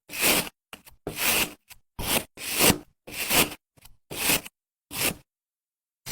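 A series of eight short rasping, scraping strokes, about one every three quarters of a second, each cutting off to silence before the next.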